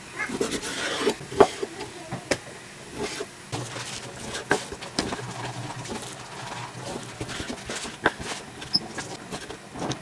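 Kitchen knife cutting raw chicken breast on a wooden cutting board: irregular sharp knocks of the blade striking the board.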